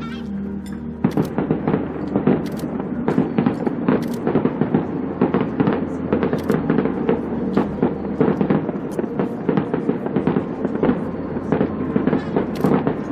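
Fireworks display going off: a dense, irregular run of sharp bangs and crackles that starts about a second in and keeps going, many shots a second.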